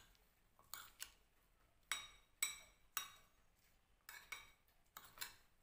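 A metal fork clinking against a glass bowl while stirring chopped salad vegetables: about nine irregular light clinks, each with a short ring.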